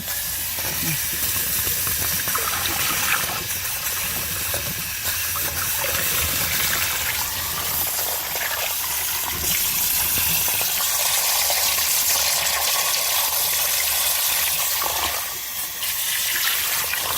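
Water pouring steadily into a hole dug in a concrete pool deck, flooding the excavation around a leaking pipe so that air escaping from the rupture will show as bubbles. The flow dips briefly near the end.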